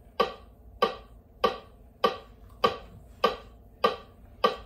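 Metronome clicking a steady beat, eight short clicks a little over a second and a half apart each.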